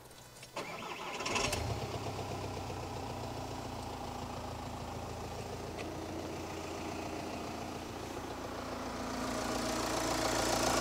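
A freshly rebuilt VW T5 bus diesel engine (new piston rings and bearings, reconditioned head) starts about a second and a half in and settles into a steady idle, louder near the end. It runs without the piston rattle the owner had feared.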